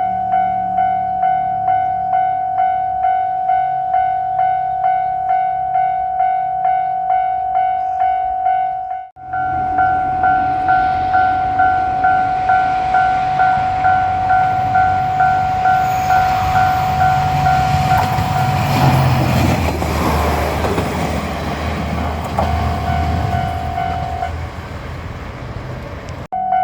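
Japanese level-crossing bell clanging at about two strikes a second while a JR Shikoku 1000 series diesel railcar approaches and passes, its engine and wheel rumble building to the loudest point about two-thirds of the way through. The bell stops as the train's noise fades away.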